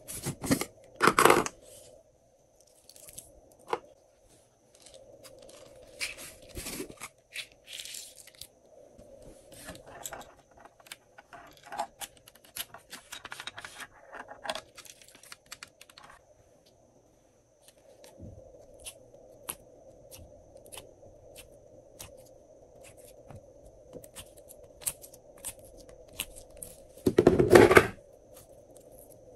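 Handling of glossy slime and its toppings: plastic containers knocked and tipped, toppings clicking and pattering down, and near the end the sticky slime pulled up off the tray with a loud tearing squelch.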